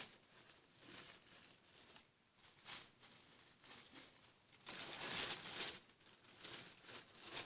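Hands squeezing and handling a soft foam squishy toy: faint, irregular rustling and scrunching in short bursts, with a longer, louder stretch about five seconds in.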